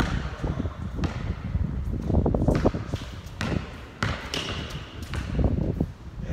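A basketball being dribbled on a court: several sharp bounces at irregular spacing, over a low rumble.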